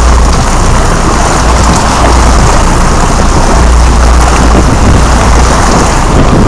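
Sport-fishing boat running under way: a loud, steady low engine drone under a continuous rush of wind and water noise on the microphone.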